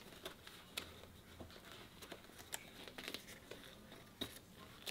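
Faint handling noise: rustling of a helmet cheek pad's fabric and padding, with a scatter of small sharp clicks as a Cardo intercom speaker and its cable are worked into it.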